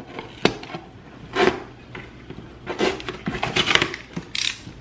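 Irregular knocks, clatters and rustles of things being handled, with a busier stretch a little past the middle.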